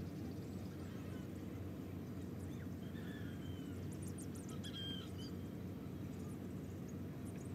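Steady low outdoor background rumble, with a few faint high chirps and whistles about three to five seconds in.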